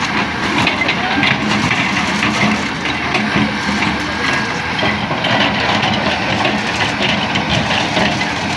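Heavy construction machinery running: a steady engine drone with irregular clattering.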